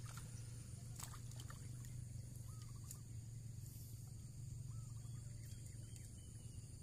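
Steady outdoor ambience: a low, even hum under a high, steady insect drone, with a few short bird chirps and a couple of sharp clicks.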